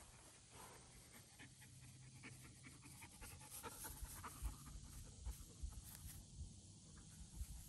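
Near silence: faint outdoor hiss with scattered soft low thumps and light clicks from a handheld camera being moved and handled.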